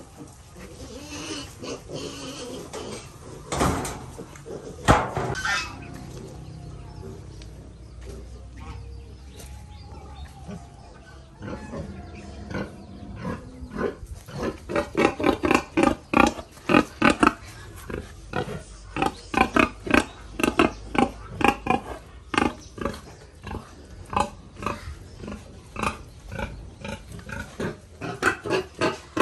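Domestic pigs calling. There are two loud cries a few seconds in, then from about halfway through a fast run of short calls, several a second.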